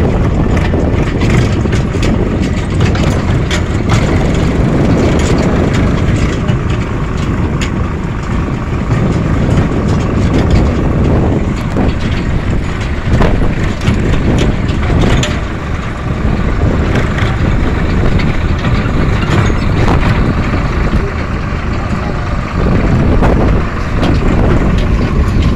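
Steady rumble of a moving vehicle heard from on board: engine and road noise, with scattered clicks and knocks throughout.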